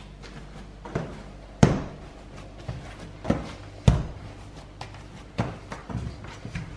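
A large mass of freshly mixed pizza dough being folded by hand and pressed onto a countertop as it is rounded into a smooth ball: irregular soft thumps, the loudest about one and a half seconds and four seconds in.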